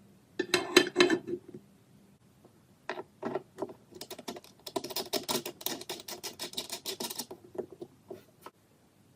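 Rapid clicking and scraping of small hard objects being handled, in several bursts, with the densest run in the middle.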